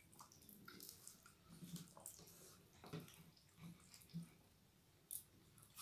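Faint eating sounds: fingers squishing and mixing soft, wet fena bhat rice on steel plates, with scattered light clicks and some chewing.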